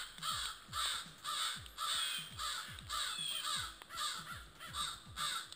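A family of crows cawing in alarm, a steady run of harsh caws about two a second. They are alerting to a coywolf, a coyote-wolf hybrid.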